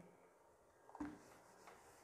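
Near silence: room tone, with one faint short sound about a second in.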